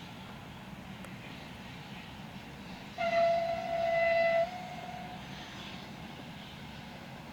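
A train horn sounds one blast about three seconds in, lasting about a second and a half, over a steady rumble.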